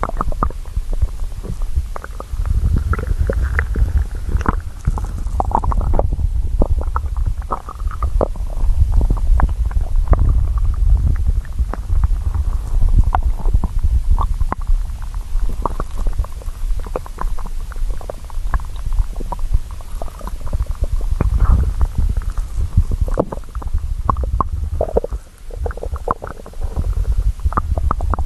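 A hungry person's stomach growling: a continuous low rumble with many short gurgles and pops, easing briefly near the end.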